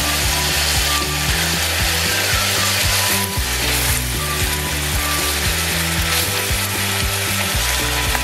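Chicken pieces sizzling in a wok as they are stirred and turned with a silicone spatula, a steady frying hiss.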